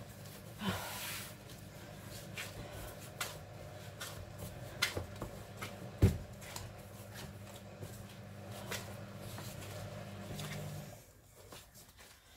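Bread dough being kneaded by gloved hands on a floured worktop: soft pushing and rubbing with scattered knocks, and one heavier thump about six seconds in. A low steady hum underneath stops near the end.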